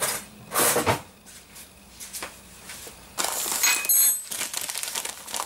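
Salt being scooped with a spoon from its packet: rustling and scraping handling noises, busier in the second half, with a short bright clink about four seconds in.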